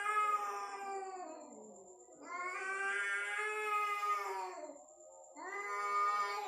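Domestic cat making long, drawn-out caterwauling calls that sound like a human voice. One call tails off early, a second runs for about two and a half seconds, and a third starts near the end; each holds its pitch and then drops away.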